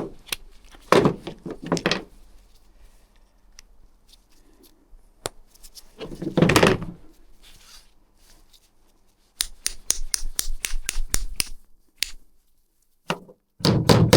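Hand work on ATV variator parts: scattered knocks and handling noises, one heavier thump, then a quick run of sharp clicks, about six a second, for roughly two seconds.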